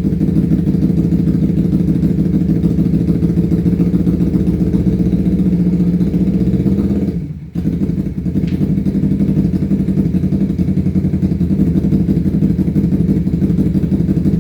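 Kawasaki Ninja 250 FI parallel-twin engine running steadily with a fast, even pulsing, set up for a chopping 'helicopter' sound. It breaks off briefly about seven seconds in, then carries on.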